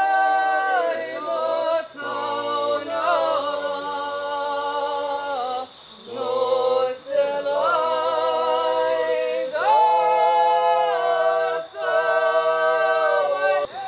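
Unaccompanied voices singing long held notes, several pitches at once, moving to a new note every second or two, with brief breaks between phrases.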